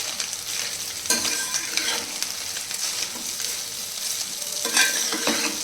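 Noodles and vegetables sizzling in hot oil in a wide pot as they are stirred and tossed, with a few short scrapes of the spatula against the pot.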